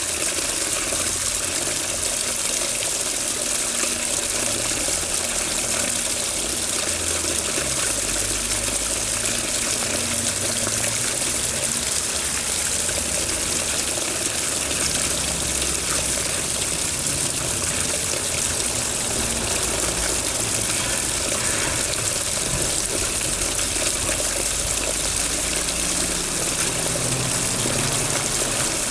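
Water running steadily with an even rushing and splashing sound, with low rumbles coming and going underneath.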